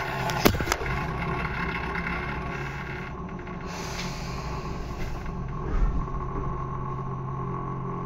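Steady low electrical hum of a Tobu 10030 series electric train's underfloor equipment, heard inside the car, with a fainter steady high tone above it. Two sharp clicks come about half a second in, and a low thud near six seconds.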